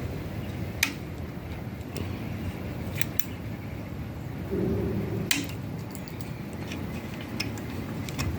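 Scattered light metal clicks and clinks of hands working on a car engine over a steady low hum, as a timing belt is worked onto the pulleys of the Miata's engine.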